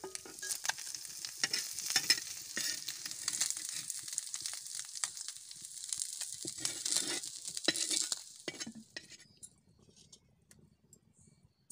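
Small whole fish frying in oil in a flat iron pan, sizzling, with a metal spatula scraping and clicking against the pan as the fish are turned and lifted out. The sizzling dies away about eight seconds in.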